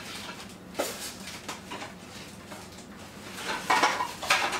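Off-camera rummaging through kitchen storage: a knock about a second in, a few light clicks, then a louder run of clattering and rustling near the end.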